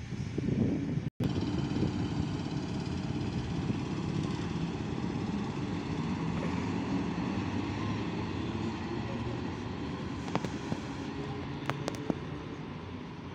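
EP07 electric locomotive with its train running at the station: a steady low rumble with a faint steady whine of several tones above it, slowly fading. A few sharp clicks come near the end, and the sound drops out completely for an instant about a second in.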